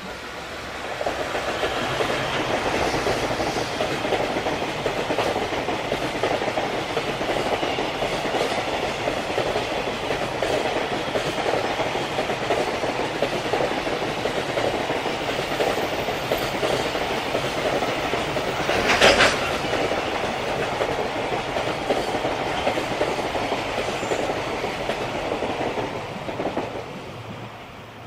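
Freight train hauled by a JR Freight EF210 electric locomotive passing with a long string of container wagons: the steady rolling noise of wheels on rail swells about a second in, holds while the wagons go by, and dies away near the end as the last wagon passes. One sharp clank stands out about two-thirds of the way through.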